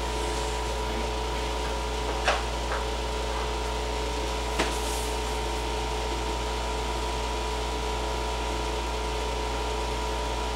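Steady hum of a window air conditioner running, with a constant low drone and a couple of steady tones. Two light knocks, about two and four and a half seconds in.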